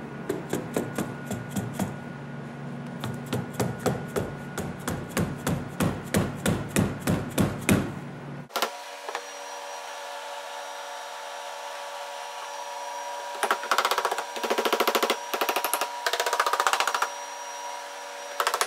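Plastic mallet tapping the rubber windscreen seal down onto the body flange of a classic Mini, in a steady run of light blows about three to four a second. After a break about eight seconds in, the taps come in quick bursts of many rapid blows, several in the last five seconds.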